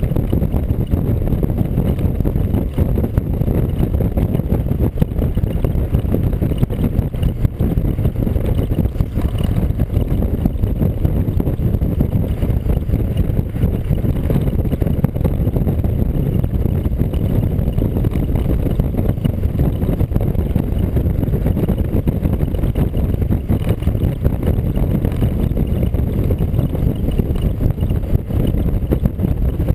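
Steady low wind rush and road rumble on the microphone of a camera mounted on a vehicle moving at road speed, unchanging throughout.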